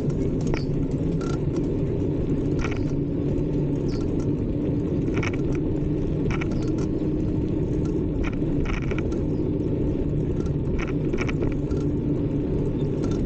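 Steady low rumble of a bicycle riding along a paved bike path, with wind on the microphone and tyre noise, and a scattering of light clicks and rattles from the bike.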